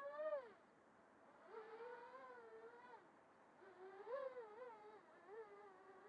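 Quadcopter's brushless motors and propellers whining faintly, the pitch rising and falling with the throttle. The whine drops out briefly early on, comes back, swells again about four seconds in, and then holds a fairly steady pitch.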